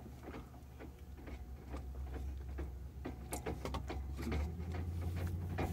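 A low, steady mechanical hum that steps up in pitch about four and a half seconds in, with a few light clicks and knocks over it.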